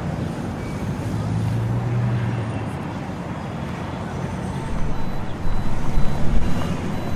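Steady city traffic noise: a low hum under an even hiss, swelling louder with low thuds about five seconds in.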